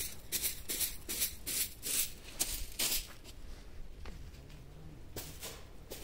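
Footsteps on dry, gravelly ground, about three steps a second at first, then fainter.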